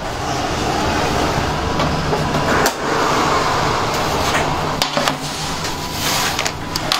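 Steady fan and machine noise of commercial bakery ovens, with a few sharp clanks of metal baking trays being handled.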